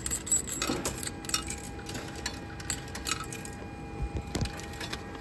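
Coins being fed one by one into a ticket vending machine's coin slot: a run of metallic clinks and clicks, thickest in the first second and a half and sparser after. Two duller knocks come about four seconds in.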